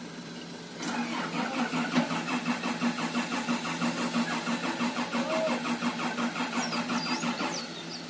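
Komatsu PC160LC-8 excavator's diesel engine cranking on the starter for about seven seconds with an even rhythmic churn, starting about a second in and stopping near the end, without catching. It will not start because the engine controller has lost power through a faulty fuse F20 connector, logging CAN-disconnect errors DAFRMC and DA2RMC.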